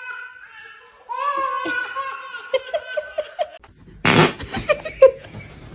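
A person laughing hard: a long, high, wavering laugh, then loud breathy bursts of laughter about four seconds in.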